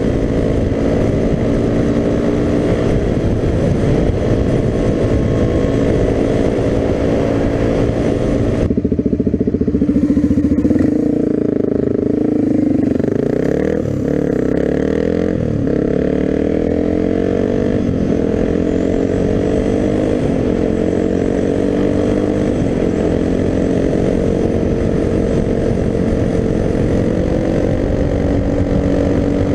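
Suzuki DR-Z250's single-cylinder four-stroke engine running under way, heard from the rider's position with wind noise on the microphone. About a third of the way through, the wind hiss cuts out suddenly and the engine note sweeps up and down several times with throttle and gear changes, then settles to a steady cruise.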